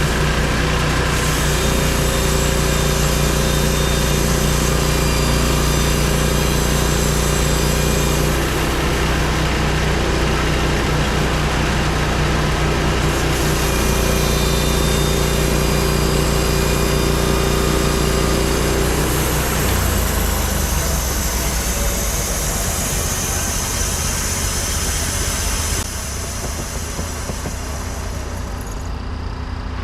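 Portable band sawmill's engine running steadily while it saws a Douglas fir log. The engine note changes about two-thirds of the way through, and the sound drops a little near the end.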